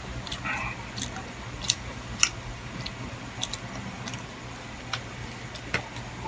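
Close-up eating sounds of someone chewing chicken liver and gizzard adobo: chewing with several irregular sharp wet smacks and clicks.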